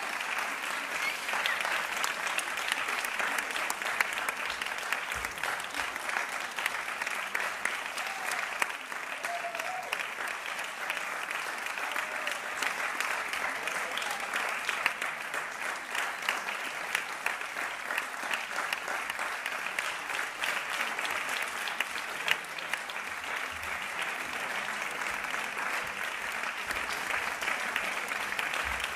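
Audience applauding steadily: many hands clapping in a dense, unbroken patter.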